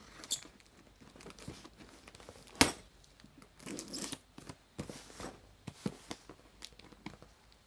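Knife slitting the packing tape along the sides of a cardboard box: irregular scratchy scraping and tearing strokes, with one sharp knock about two and a half seconds in.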